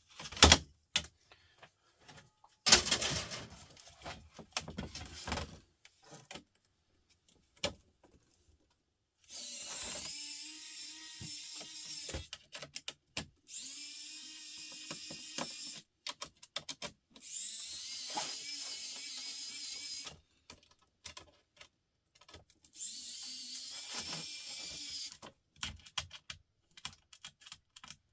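Small electric screwdriver whirring in four separate runs of two to three seconds each, backing screws out of a laptop case. Before the first run there is some clicking and clattering of parts being handled.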